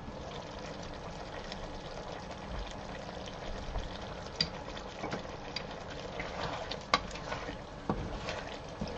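Diced potatoes bubbling and sizzling in a frying pan, the hiss growing as the glass lid comes off. Then a wooden spoon stirs them, knocking and scraping against the pan several times, one knock sharper than the rest about seven seconds in.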